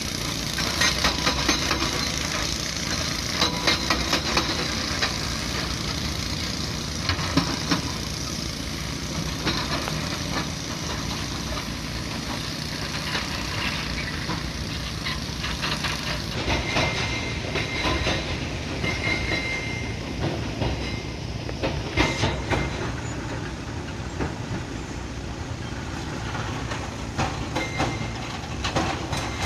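Crawler excavators working broken stone: diesel engines running under a steady noise, with irregular clanks and clatters of rock and steel throughout.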